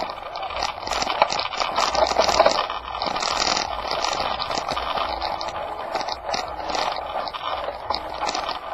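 Continuous crunching and rattling noise of travel along a rough gravel lane, dense with quick irregular crackles and ticks.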